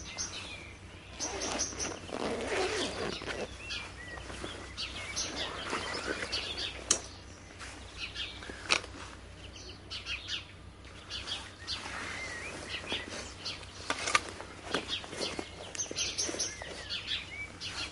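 Birds chirping and singing, with rustling and handling noise as a rifle and camouflage cloth are moved about. A few sharp knocks stand out, about seven, nine and fourteen seconds in.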